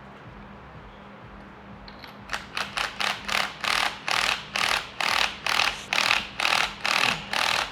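Hand ratchet wrench being worked in quick repeated strokes, about two to three a second, starting about two seconds in.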